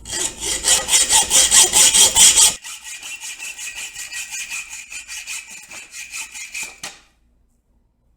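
Hacksaw cutting through a 3/8-inch square bar of mild steel in quick, even back-and-forth strokes. The strokes are loud at first, go softer about two and a half seconds in with a faint ringing from the steel, and stop about seven seconds in.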